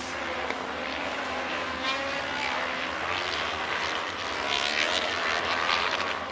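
Engines of 500 cc kart cross cars racing round a dirt track at a distance: an engine drone that wavers in pitch as the karts rev and shift, louder for a stretch about two-thirds of the way through.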